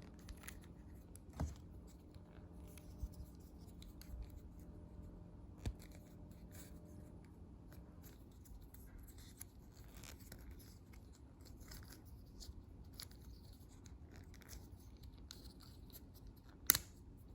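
Quiet handling of a small plastic part: scattered light clicks and scratches as a little plastic tab is worked off a GoPro Hero 8 Black camera, with a sharper click near the end.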